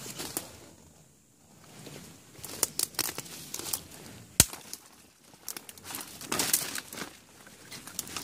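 Footsteps crunching and rustling through dry leaf litter among shrub branches, in uneven irregular steps with a short lull about a second in. A single sharp crack a little past halfway is the loudest sound.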